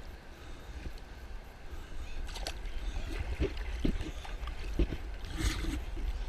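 Whitewater rapids rushing and splashing, with a few dull knocks in the middle and a louder splash near the end.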